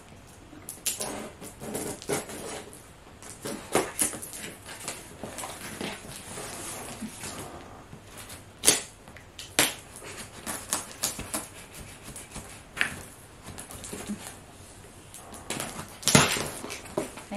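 Scissors snipping and scraping at the packing tape of a cardboard parcel box, with irregular sharp clicks and cardboard crackling; a louder burst of crackling near the end as the flap is pulled open.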